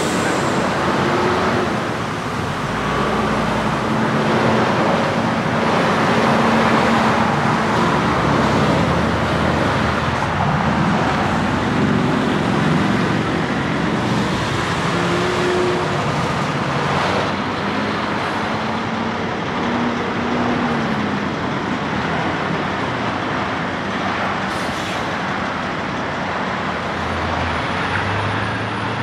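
Road traffic with semi trucks and cars passing: diesel engines running over steady tyre noise, engine pitch rising and falling as each vehicle pulls through and goes by.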